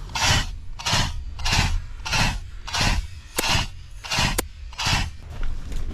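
Footsteps on dry dirt and leaf litter at a steady walking pace, about eight steps, with two sharp clicks in among them near the middle.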